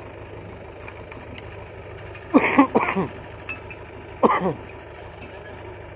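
Tractor diesel engine idling steadily with a low pulsing drone, while a man's voice calls out loudly twice, about two seconds in and again near four seconds.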